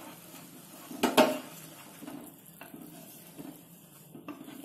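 Wooden spatula stirring and scraping hot, frothy milk-and-milk-powder rabdi in a black pan, with a faint sizzle from the hot milk. There is one louder knock of the spatula against the pan about a second in, and a few lighter taps later.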